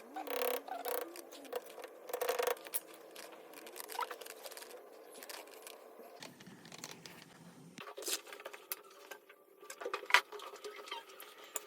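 Scattered light clicks, taps and rustles of hands working with small plumbing parts and tools, with a brief low hum about six seconds in.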